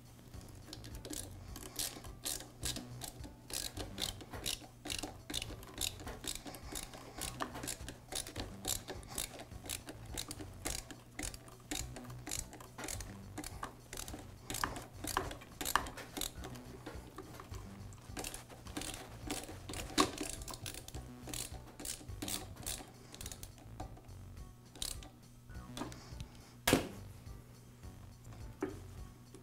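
Hand screwdriver driving a ground wire screw into a metal motor housing: a run of small clicks and scrapes, several a second, with a couple of sharper knocks near the end. A steady low hum lies underneath.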